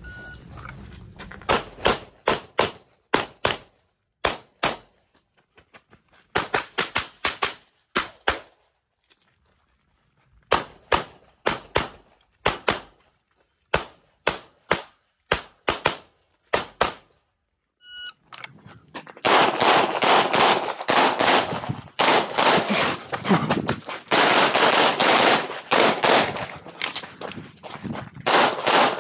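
Semi-automatic pistol fire in quick pairs and short strings, with brief pauses between groups. About 18 seconds in, a short electronic shot-timer beep starts another run, and the shots after it come louder and in rapid, nearly continuous strings.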